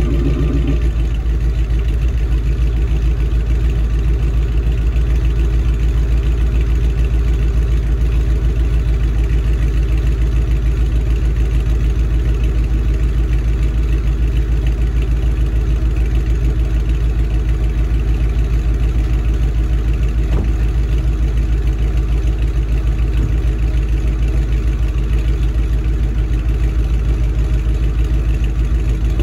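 Mercedes-Benz CLS 55 AMG's supercharged 5.4-litre M113K V8 idling steadily, heard from behind the quad exhaust tips while the engine is still cold from a morning cold start.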